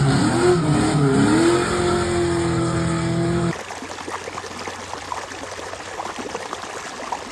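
Race car engine revving, its pitch swinging and then held steady, cutting off about three and a half seconds in. A quieter, rough, crackling run follows.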